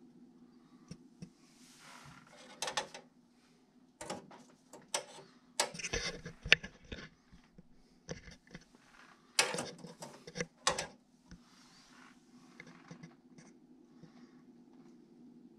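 Irregular clicks, knocks and rustling, bunched in the middle and loudest a little after halfway, over a steady low hum.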